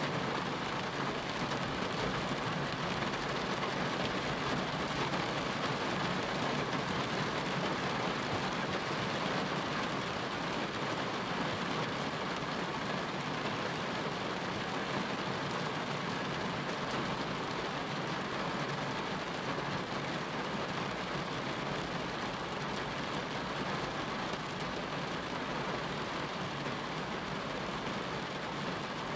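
Steady rain falling, an even continuous hiss with no separate drops or thunder standing out.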